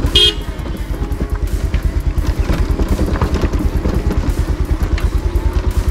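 Motorcycle engine running with a rapid, even low pulse.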